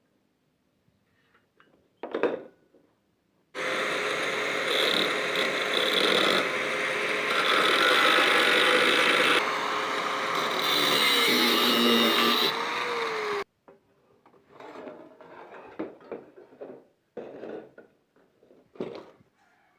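A power tool runs for about ten seconds, starting and stopping abruptly, with a steady motor tone whose pitch dips briefly near the end. A knock comes just before it, and scattered knocks and clatter follow.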